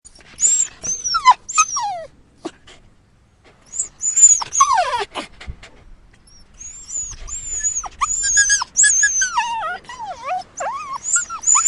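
A dog whining and crying: a run of high-pitched whimpers, most sliding down in pitch, in three bouts with a short lull about a quarter of the way in, the last bout longest and busiest.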